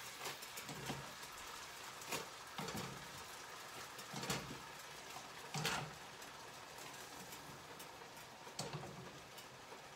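Boiled noodles lifted with tongs out of a pot of hot water, dripping and splashing back into the pot and dropping into a frying pan. About seven short splashes or tong knocks come at irregular times over a faint steady hiss.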